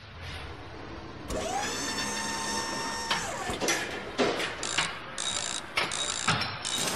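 Mechanical sound effects for an animated intro. A whir swells in and rises, then holds a steady tone from about a second in. From about three seconds in comes an irregular run of ratchet-like clicks and metallic clanks.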